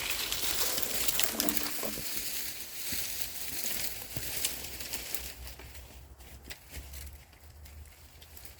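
Dry leaves and brush rustling and crackling, with many small snaps, louder for about the first five seconds and then fading.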